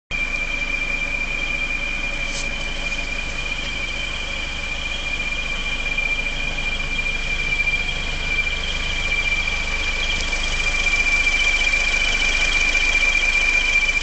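Ford Fiesta Mk5 1.4 petrol engine idling with a steady high-pitched whistle at one unchanging pitch, a fainter second tone just above it. The whistle comes only at tick-over, usually after a short trip begun from cold, and its cause is unknown to the owner.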